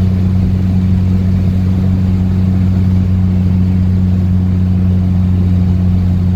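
Steady low drone of a car driving along a road, heard from inside the cabin: an even engine hum with tyre and road noise.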